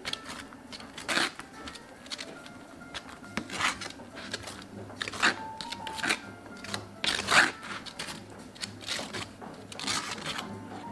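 A long metal spatula smearing thick chocolate spread across a crepe in repeated uneven swishing strokes, the loudest about seven seconds in.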